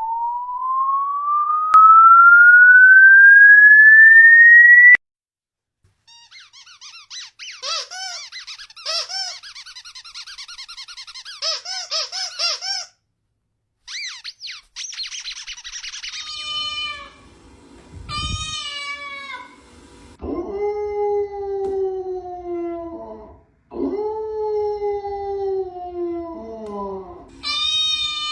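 A pure electronic tone sweeping steadily upward for about five seconds and cutting off suddenly, then high squeaky chirping, then a dog giving a series of long calls that fall in pitch.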